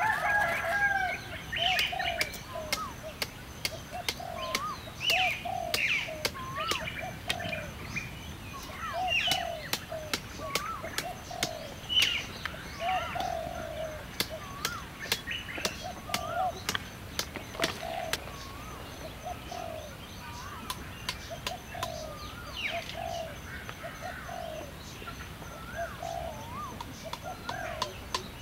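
Birds calling: one bird repeats a short low note about once a second over scattered higher chirps. A run of sharp knocks sounds through the first two-thirds.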